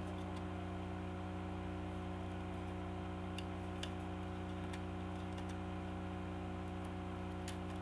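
Steady low electrical hum, with a few faint scattered clicks and taps from a plastic CD case and discs being handled.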